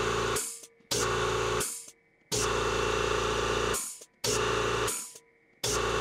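Kobalt Quiet Tech air compressor's motor and pump starting and stopping five times in quick succession. Each run starts abruptly, lasts from about half a second to a second and a half, and winds down as it cuts out, with a hiss of air.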